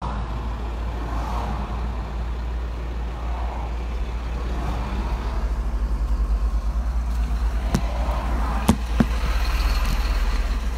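Car and traffic noise heard from inside an open-top car crawling in a motorway traffic jam: a steady low rumble with a haze of road noise. A few sharp clicks come about 8 to 9 seconds in.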